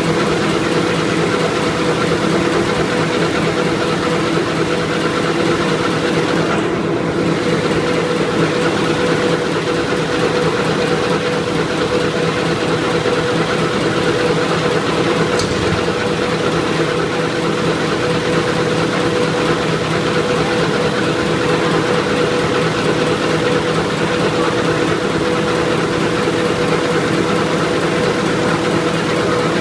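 Paper napkin cutting and folding machine for 24 cm napkins running steadily, a constant mechanical hum with no pauses.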